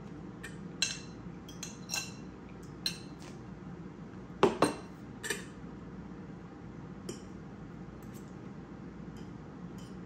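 Metal fork clinking and scraping against a ceramic bowl during eating: a dozen or so scattered sharp clinks, the loudest a close pair of knocks about four and a half seconds in.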